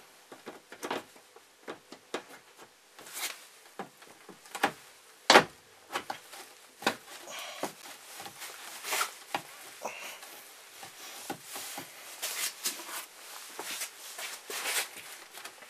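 Plastic tail-light housing of a Subaru Forester SH clicking and knocking as it is pressed back onto its locating guides in the body: a run of irregular clicks and knocks, the loudest about five seconds in, with denser scratchy handling noise toward the end.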